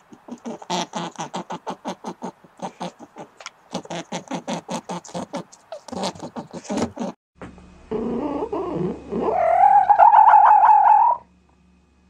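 A hare chewing grass: fast crunchy bites, about seven a second, in short runs. A few seconds in, a red fox kit gives a loud, drawn-out whining call that wavers and rises in pitch, then stops abruptly.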